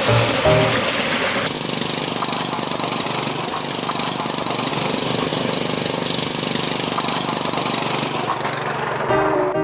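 Small engine of a motorised narrow-gauge rail trolley running steadily as it comes along the track. Music fades out about a second in, and piano music starts near the end.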